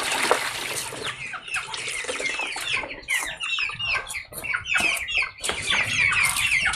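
Water splashes out of a plastic basin at the start, then many birds chirp busily, with short high falling calls several times a second.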